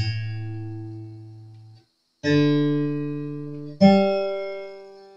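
Steel-string acoustic guitar, freshly restrung on replacement tuners, being plucked one string at a time to check its tuning. Three single notes sound, each higher than the last. Each one rings out and fades, and the first is damped short.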